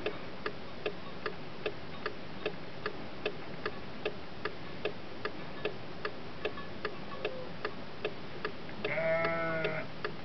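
A sheep bleats once, about a second long, near the end. Under it, a stopped car's flasher relay ticks steadily, about two and a half ticks a second, heard from inside the car.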